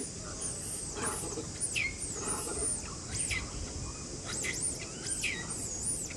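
Repeated high-pitched squeaky calls, each sweeping up and then down in pitch, over a steady high insect-like drone.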